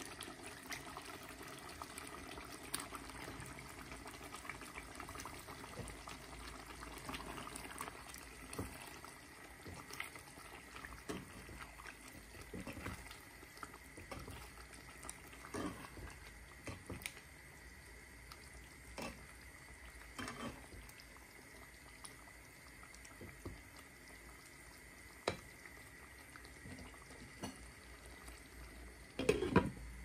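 Curry simmering in a pan, with scattered clicks and scrapes of a spatula stirring fish pieces in the sauce. A louder clatter comes near the end as a glass lid is set on the pan.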